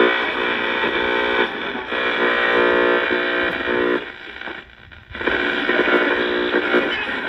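Small radio's speaker playing as it is tuned across the dial: hiss and distorted snatches of broadcast music with steady held notes. The sound dies away briefly a little past the middle, then another station comes in.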